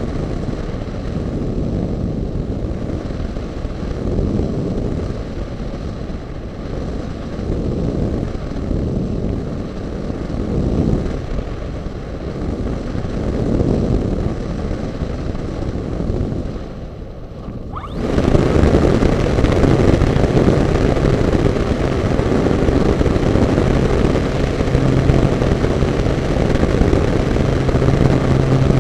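Airflow rushing past the onboard camera of a Diamond 2500 RC model glider, swelling and fading while it glides with the motor off. About two-thirds of the way in, the glider's motor starts suddenly and the spinning propeller brings a much louder, steady drone, with a low hum near the end.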